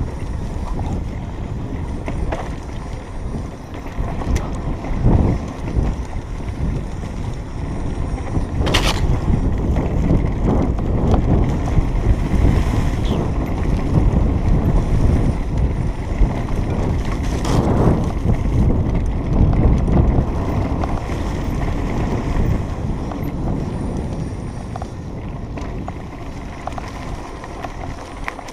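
Wind buffeting the microphone and the mountain bike rattling over a rough dirt trail at speed, a steady low rumble with a few sharp knocks from bumps.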